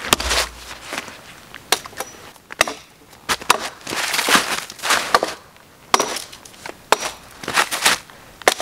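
A sharp axe blow into a dead conifer trunk with a low thud at the start, then a few woody cracks. After that comes snowshoes crunching in snow as a boot stomps on the felled, branchy trunk, with twigs snapping and a sharp crack near the end.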